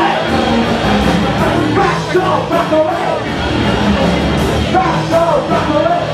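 Live rock band playing loud, with a singer's voice over the band and drums, as recorded from within the crowd.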